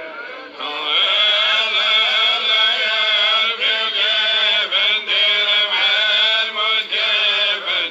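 A solo voice chanting in long, wavering held notes, a melodic chant laid over the footage; it grows louder about half a second in.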